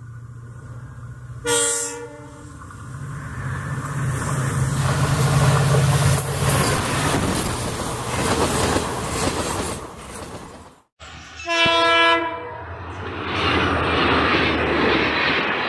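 A train sounds a short horn blast, then its engine drone grows into the rush of it passing at speed. After a sudden cut, an EMD WDP4D diesel locomotive sounds a second, longer horn blast and passes close at speed, its engine working hard under the wheel clatter.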